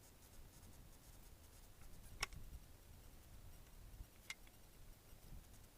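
Near silence: room tone with one sharp click about two seconds in and a fainter click later.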